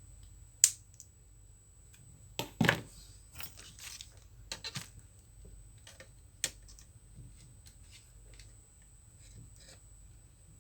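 Sharp clicks and knocks of a laptop's processor heat sink and fan being handled and set into place on the motherboard, loudest about half a second in and in a cluster around two and a half seconds, then lighter taps, over a faint steady high whine.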